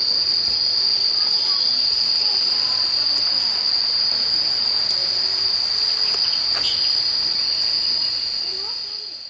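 Insects shrilling in a steady, unbroken high-pitched drone, fading out near the end.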